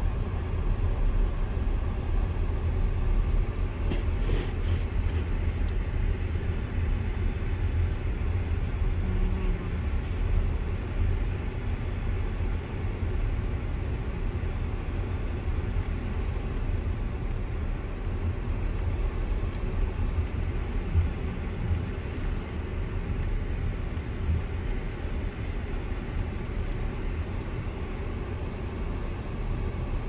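Steady low rumble of a car driving on a snow-covered road, engine and tyre noise heard from inside the cabin, with a few faint clicks.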